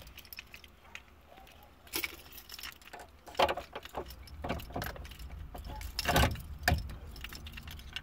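Ignition key jangling and metal clicking and knocking as a new lock cylinder is pushed and worked into an Opel Corsa B's steering-column ignition housing, with the loudest clicks about three and a half and six seconds in.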